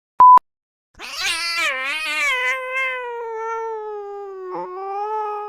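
A short electronic beep, then about a second later a long, drawn-out cat meow that wavers and slowly falls in pitch over about four and a half seconds.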